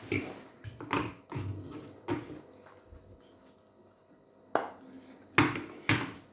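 Hard objects being handled and set down while a small weighing scale is got out: a few light knocks and clatters, a quiet stretch, then three sharp knocks near the end.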